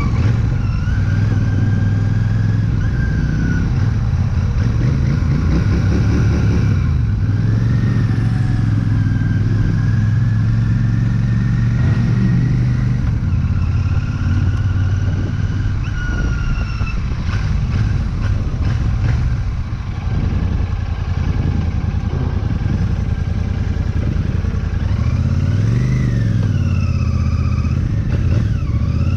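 Royal Enfield Shotgun 650's 648 cc parallel-twin engine running as the motorcycle is ridden. Its note rises and falls a few times with the throttle, most clearly near the end.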